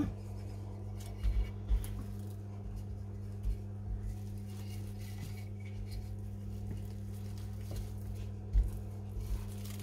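Wooden rolling pin rolling out soft dough on plastic wrap, giving a few soft thumps and light rustling over a steady low hum.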